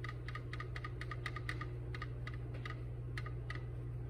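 Paintbrush dabbing on a stretched canvas: a quick, irregular series of light taps, about four a second, as bristles stipple paint onto the canvas. The taps stop shortly before the end. A steady low hum runs underneath.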